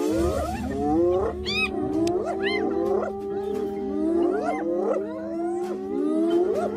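A pack of spotted hyenas calling excitedly as they mob a lion: many overlapping calls that glide up and down in pitch, several a second, with no pause.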